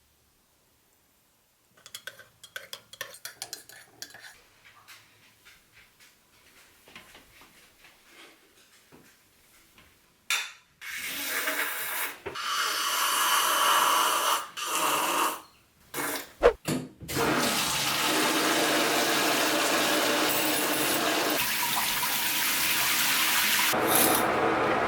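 Faint clicks and handling noises, then from about eleven seconds in a loud rush of running water, broken by short pauses and a couple of sharp knocks.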